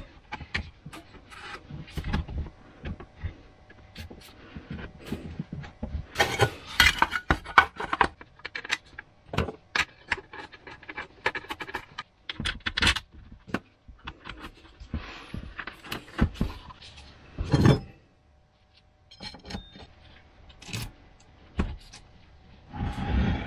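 Irregular clicks, knocks and scrapes of metal and plastic chainsaw parts and a screwdriver being handled during reassembly of a McCulloch chainsaw, with the bar and loose chain clattering near the end.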